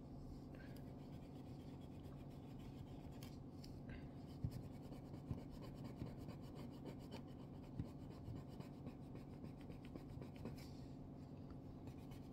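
Steel wool rubbed back and forth over the side of a straight razor blade to clean off scuffs: a faint, steady scratching, with a few small taps.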